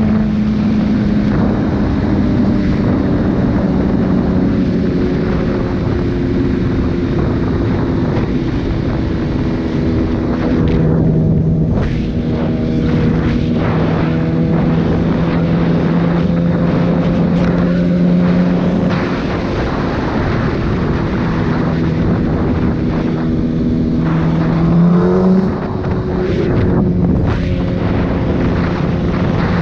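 Sport bike's inline-four engine running at a steady cruising note, with wind rushing over the camera microphone. About 25 seconds in the engine note rises sharply, then drops with a brief dip in level, like a rev and a gear change.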